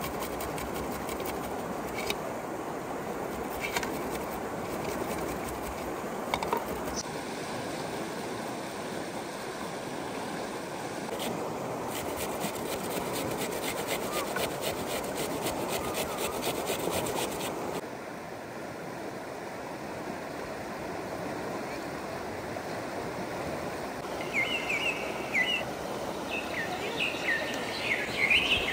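Steady outdoor noise with a few scattered clicks and a stretch of fast, fine ticking midway; short bird chirps come in near the end.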